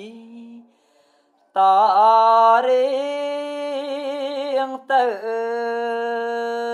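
A Buddhist monk's solo smot chanting in Khmer. A held note fades out, and after a short pause a new phrase begins loudly, its drawn-out notes wavering in a slow vibrato. After a brief break near the end it settles into one long, steady held note.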